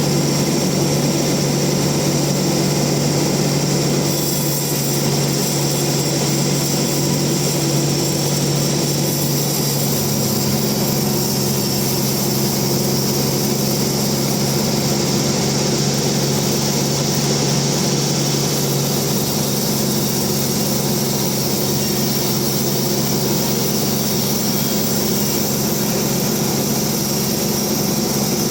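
Bandsaw mill running steadily with a constant mechanical hum.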